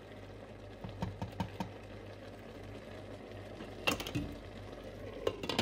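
A wooden spoon stirring squid rings in a stainless steel pot, knocking against the pot several times in quick succession about a second in, with louder clacks near four seconds and again just before the end. A faint low steady hum runs underneath.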